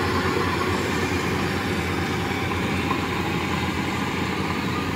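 Rice combine harvesters running steadily under load while cutting the crop: a constant engine and threshing-machinery drone with a low rumble.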